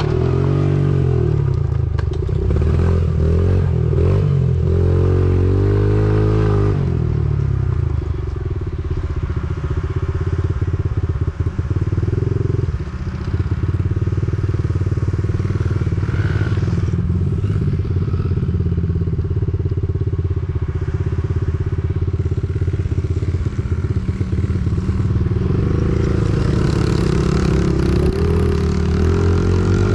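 Honda mini dirt bike's small single-cylinder four-stroke engine running while being ridden, its revs rising and falling during the first several seconds and again near the end, steadier in between.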